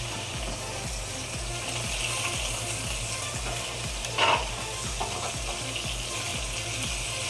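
Slices of marinated beef tapa sizzling as they shallow-fry in a little oil in a nonstick wok over a low flame, with a brief louder noise about four seconds in.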